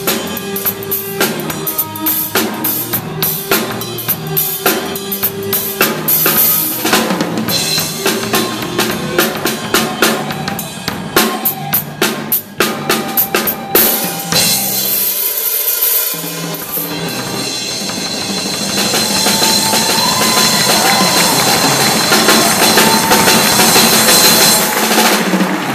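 Live drum kit played in a fast, busy pattern of snare, bass drum and cymbal hits, with electric bass and guitar under it; in the last third the separate hits give way to a sustained cymbal wash.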